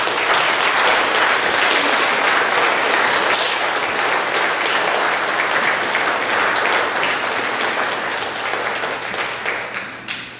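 Audience applauding: dense clapping that tapers off over the last couple of seconds and stops just before the end.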